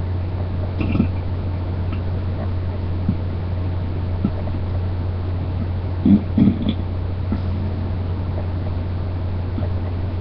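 Closed-mouth burps: one short, low burp about a second in, then two more in quick succession around six seconds in, over a steady low hum.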